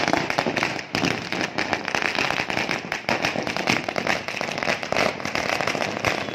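Firecrackers going off on the road in rapid succession, a dense, continuous crackle of many small bangs.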